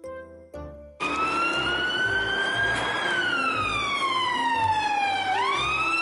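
Police car siren wailing, starting about a second in: a slow rise, a long slow fall, then a quick sweep back up near the end. Soft children's music plays underneath.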